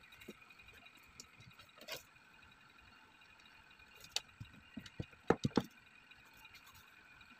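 Cardboard craft pieces and fabric being handled: faint rustling with a few light clicks, then a quick cluster of small knocks and taps about four to six seconds in.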